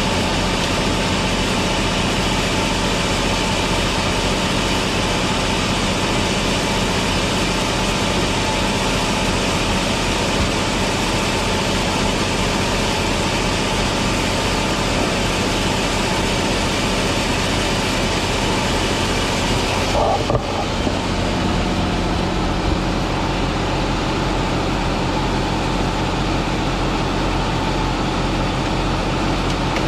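Sawmill machinery running steadily: a motor's drone with a broad hiss over it. About twenty seconds in there is a brief knock and the high hiss drops off, leaving mostly the drone.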